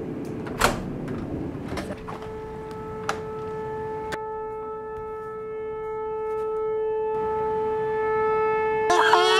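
A few sharp knocks over faint outdoor background noise, then a single steady horn-like tone comes in about two seconds in. It holds one pitch and slowly swells louder. Near the end a wavering, wailing voice-like sound joins it.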